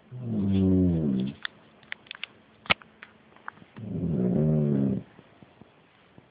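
A man snoring loudly while asleep: two long snores about three and a half seconds apart, each sinking slightly in pitch, with faint small clicks in between.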